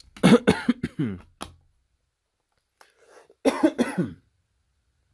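A man coughing in two short bouts, a quick run of coughs just after the start and a few more about three and a half seconds in.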